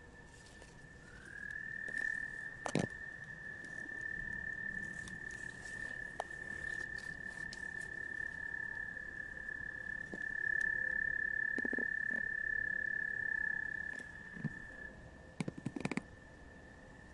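A frog's long, steady high trill, sliding up into pitch about a second in, growing louder partway through and stopping a couple of seconds before the end. A few sharp clicks come through, one about three seconds in and a quick cluster near the end.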